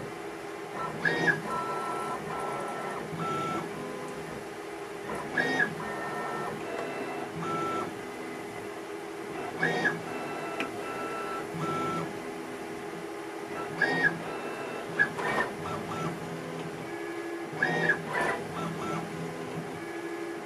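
Tormach CNC mill's axis drives whining in short moves of changing pitch during a touch-probe inspection cycle, over a steady machine hum. About every four seconds there is a louder cluster of clicks and quick rising whines.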